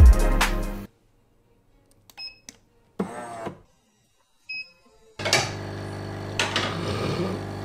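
Background music stops about a second in. A Scott Slimissimo bean-to-cup espresso machine's touch panel then beeps twice, a short high tone each time, and the machine starts running with a steady hum as it makes an espresso.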